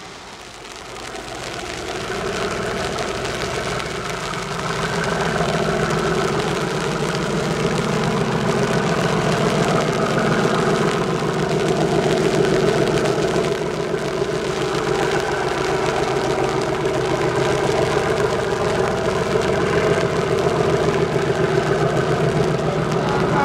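A train's diesel engine running, growing louder over the first five seconds or so as it draws near, then running steadily and strongly.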